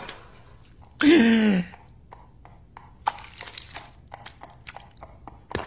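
A short voiced cry, falling in pitch, about a second in, followed by a long run of scattered small crunches and clicks.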